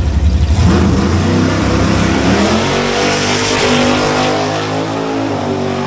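Drag-racing street cars launching off the line and accelerating down the strip. Their engine note climbs steeply about a second in, then holds high with stepped shifts in pitch.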